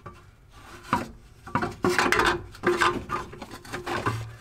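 Irregular metal clanks and scrapes from the steel exhaust overpipe and the parts around it being wrestled by hand under the car, some clanks with a brief ring.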